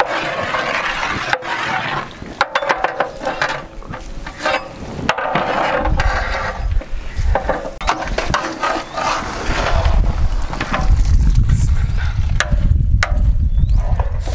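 Metal ladle stirring and mashing boiled mutton in a large cooking pot, scraping with repeated clinks and knocks against the pot: the meat being pounded down for haleem. A low rumbling noise comes in about six seconds in and grows loudest near the end.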